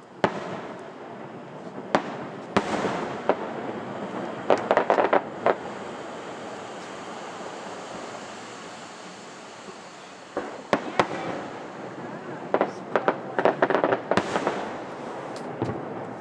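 Fireworks display going off: sharp bangs, each trailed by a lingering rumble of echo, with two spells of rapid crackling, about five seconds in and again near the end.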